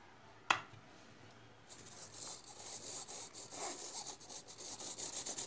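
A single sharp click about half a second in, then from under two seconds in a fast, uneven, scratchy rubbing as hands handle the parts and wires of a foam RC delta-wing model.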